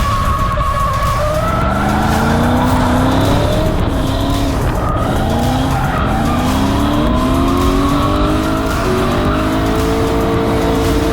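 Drift car engine revving hard, its pitch climbing again and again every second or two with tyres squealing and skidding, then holding steady revs near the end.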